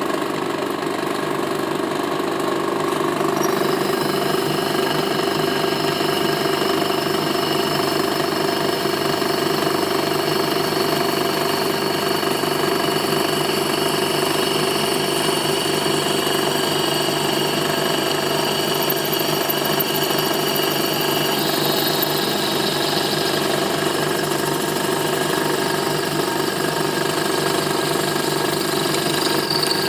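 Pillar drilling machine running, its twist drill boring into a metal workpiece: a steady machine hum, joined about three seconds in by a high, steady whine.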